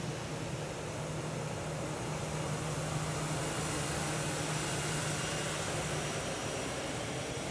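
Jet engines of an Airbus A319 airliner taxiing past: a steady hiss with a low hum, swelling a little as it passes.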